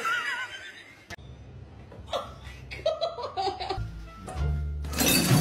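A person laughing, then music with a steady bass line from about four seconds in.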